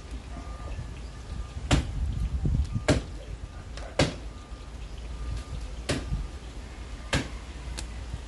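A metal cooking utensil knocking sharply against a large metal cooking pan, about six strokes at uneven intervals, over a steady low rumble.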